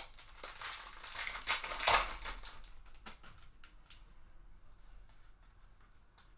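Crinkling of a foil trading-card pack wrapper, loudest about two seconds in, followed by a few faint light clicks of cards being handled.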